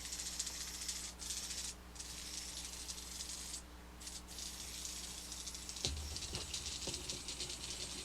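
Small HexBug Junk Bot toy robot rattling fast as it runs over a hard surface, missing one wheel; the rattle drops out briefly a few times. A low thump about six seconds in.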